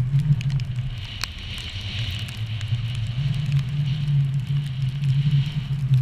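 Skis running through snow, with wind rumbling on an action camera's microphone and scattered crackles and clicks.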